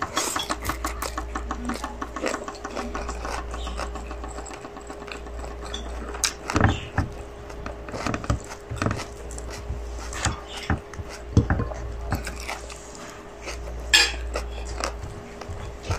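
Close-up mouth sounds of a person eating kabsa rice and chicken with her hand: chewing and wet lip smacks in irregular clicks, with now and then a light tap on the plate.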